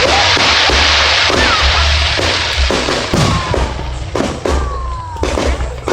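Aerial fireworks exploding in quick succession: many sharp bangs and thuds, with a few short whistles gliding in pitch. A dense hiss fills the first two seconds.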